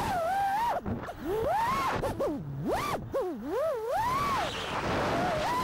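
FPV quadcopter's 6S 1800KV brushless motors and props whining in flight, the pitch swooping up and down several times as the throttle is punched and chopped, with sharp dips where the throttle is cut during manoeuvres.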